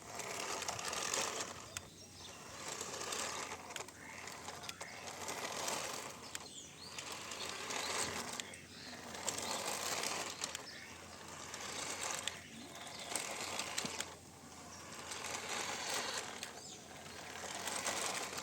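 Small electric motor and gears of a remote-control toy vehicle running, the whirring noise swelling and easing off about every two seconds as it drives.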